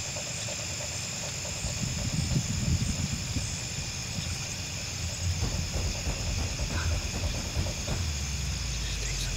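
Steady outdoor chorus of insects such as crickets, a continuous high trilling, over an uneven low rumble.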